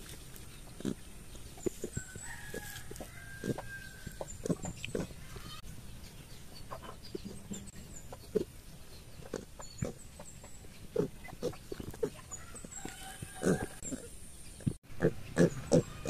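Piglets grunting in short, scattered grunts, with chickens calling in the background and small high chirps. About fifteen seconds in there is a brief dropout, after which the piglets grunt rapidly and densely.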